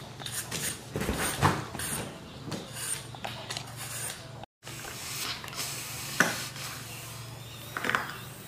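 Scattered clicks, taps and rubbing of hands handling objects, with a brief dropout to silence about halfway through.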